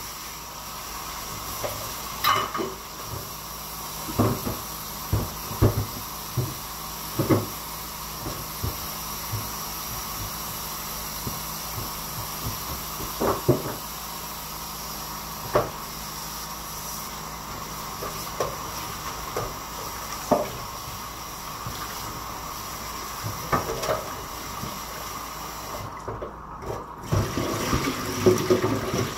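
Kitchen tap running into a sink while something is rinsed by hand, with scattered knocks and clinks against the sink.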